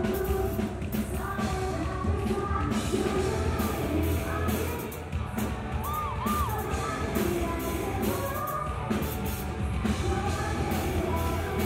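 A woman singing into a microphone over a live band playing a rock-style anime song cover.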